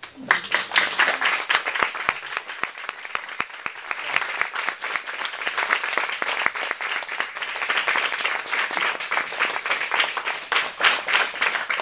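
Audience applauding: dense clapping that starts suddenly and continues steadily.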